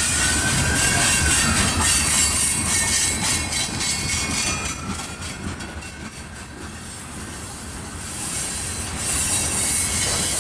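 Freight train cars rolling past: steady wheel-on-rail rumble and clatter, with a faint wheel squeal gliding in pitch near the start and again mid-way. The noise dips briefly a little past halfway, then rises again.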